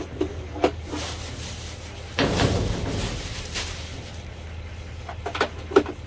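Trash bags and boxes being shifted about in a dumpster: plastic rustling, a louder stretch of handling about two seconds in, and a few sharp knocks, over a steady low hum.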